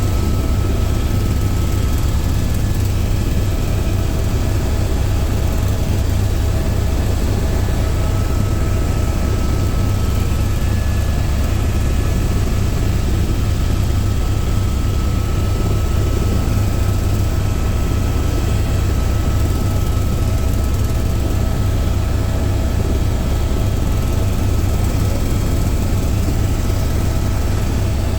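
Helicopter in flight: steady, loud rotor and turbine noise with a deep drone, and a thin steady whine above it.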